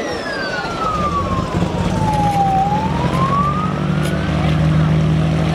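A siren wailing, its pitch sliding slowly down and then back up, over a steady low engine hum that sets in about a second in and grows louder.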